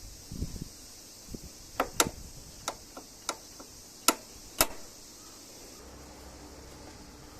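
A handful of sharp, irregularly spaced clicks and taps, the loudest two near the middle, over a faint steady hiss.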